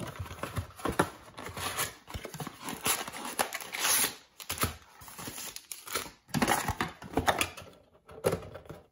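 Cardboard card box being torn open and its foil-wrapped trading card packs pulled out and handled: irregular bursts of tearing and crinkling.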